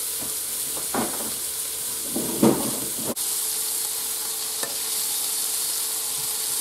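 Pork and flour-dusted rabbit pieces sizzling in a hot frying pan with a steady hiss. Two short knocks come about one and two and a half seconds in, the second the loudest. The sizzle gets a little louder after about three seconds.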